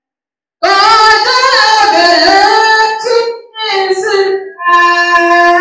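A solo voice singing a melody in phrases, with long held notes and short breaks between phrases, starting about half a second in after a moment of silence.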